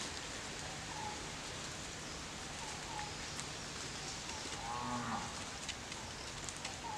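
A long, low, steady animal call lasting about four seconds, followed about five seconds in by a short, higher call with a rising and falling pitch, over a steady outdoor hiss with small chirps every second or two.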